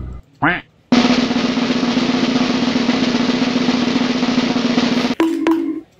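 A snare drum roll, starting abruptly about a second in and running steadily for about four seconds before cutting off sharply, followed by a brief low tone.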